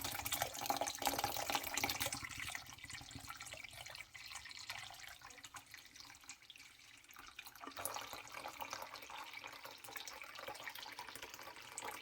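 Water running and splashing into a sink, loudest for the first few seconds, then quieter and uneven.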